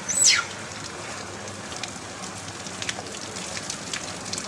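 Steady rain falling, a constant hiss with scattered ticks of drops striking. Right at the start comes one short, high squeal that drops steeply in pitch, the cry of a baby macaque.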